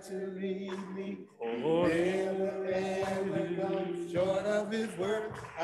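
A small group of church singers singing a slow hymn, drawing out long held notes that slide between pitches, over a steady sustained keyboard accompaniment.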